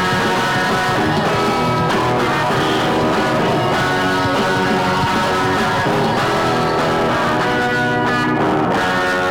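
Rock music led by guitar, playing steadily throughout.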